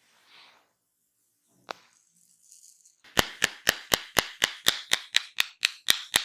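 Hands striking the head in a barber's percussive head massage: a single sharp click, then about a second later a fast, even run of sharp slaps, about four a second, that carries on to the end.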